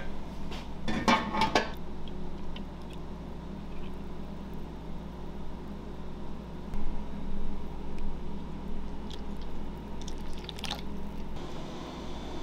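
Stainless-steel lid clattering as it is lifted off a steel container of cooking oil and set down, about a second in. After that comes a quiet thin stream of oil pouring into a glass measuring jug and then into a steel bowl of marinade, over a steady low hum.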